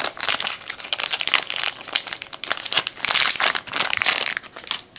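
Packaging crinkling and rustling as trading cards are handled and pulled out of a box, in a dense run of crackles that is loudest about three to four seconds in.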